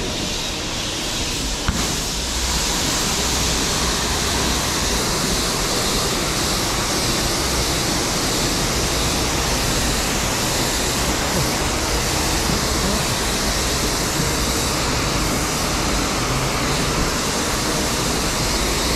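High-pressure wash lance at a self-service car wash spraying water in a steady hiss. It opens up with a click about two seconds in and cuts off sharply at the very end.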